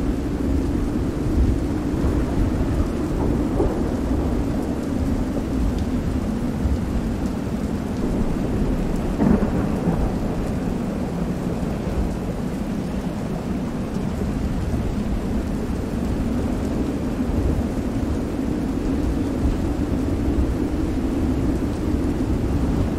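Stormy ambience: steady rain over a low, continuous rumble of thunder, with one short louder crash about nine seconds in.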